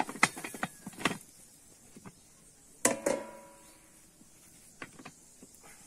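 Metal frying pan and round metal lid clanking as they are handled over a wood fire: a few light knocks in the first second, then a louder double clank about three seconds in that rings briefly, and a couple of faint taps near the end.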